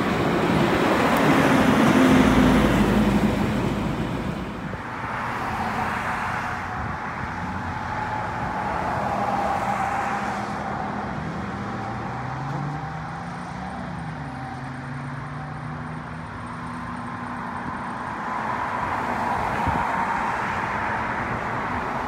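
Road traffic at an intersection: a semi truck pulling an empty end-dump trailer drives past close by, loudest about two seconds in, then passing vehicles' engines rise and fall in pitch several times as they pull away, over a steady traffic hiss.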